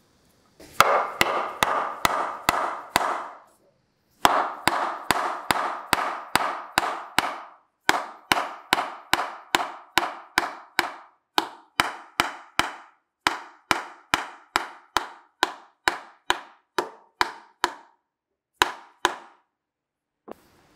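Mallet blows knocking a glued wooden joint home, a leg seated into its dovetailed rail: runs of sharp, steady strikes about three a second, with short pauses between runs and two single blows near the end.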